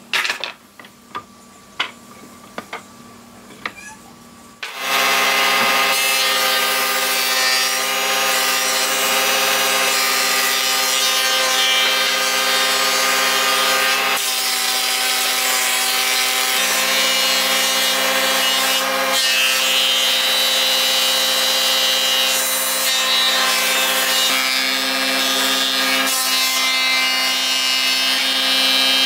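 A few light knocks, then about five seconds in a power tool starts and runs steadily working wood. It gives a steady hum of several tones over a hiss.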